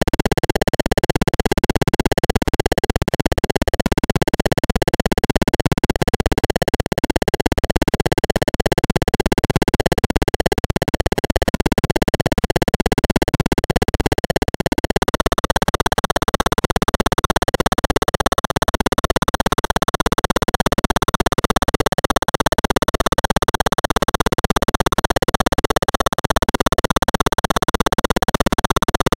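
Code-generated electronic sound from a 256-byte ZX Spectrum intro: a dense, steady noisy tone whose pattern shifts about halfway through.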